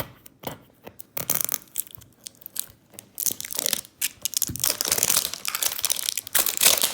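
Pokéball card tin being unwrapped: a few sharp clicks and knocks as it is handled, then plastic wrapping crinkling and tearing from about three seconds in.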